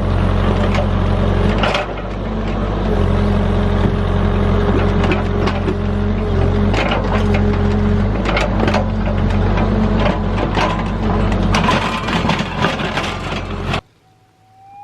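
Excavator's diesel engine running steadily while its bucket scrapes and digs through rocky ground, with many sharp clacks and knocks of rock. It cuts off suddenly near the end, and a metal detector's rising target tone starts.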